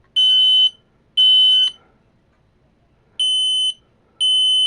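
Smoke alarm sounding the temporal-three (code 3) evacuation pattern, set off by holding its test button. Short high-pitched beeps, each about half a second long: two a second apart finish a group of three, then after a pause of about a second and a half two more beeps follow.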